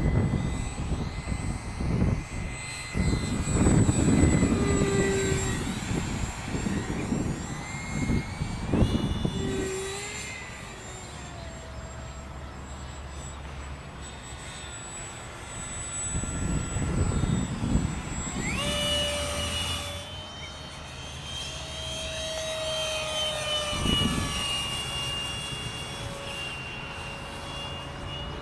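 Freewing mini MiG-15's 64 mm electric ducted fan whining in flight, its pitch rising and falling as the throttle and passes change, with a sharp rise about two-thirds through. Gusts of wind rumble on the microphone during the first third.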